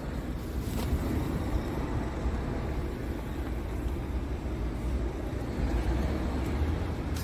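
Diesel engine of a Scania R tractor unit idling steadily, a low even running with no change in speed.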